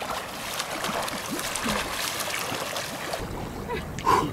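Water splashing under a swimmer's front-crawl arm strokes in a lake, easing off about three seconds in.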